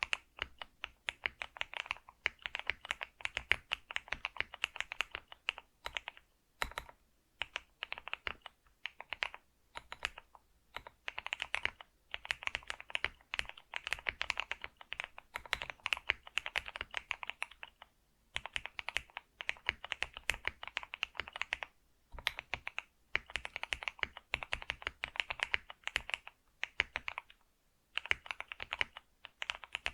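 Computer keyboard being typed on steadily: rapid runs of key clicks in bursts of a few seconds, broken by short pauses.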